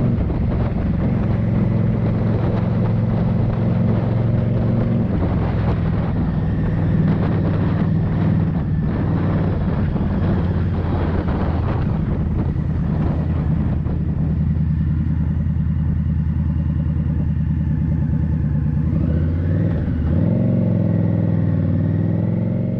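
Indian Scout Bobber's V-twin engine running steadily. Its note changes about five seconds in and wavers again near the end.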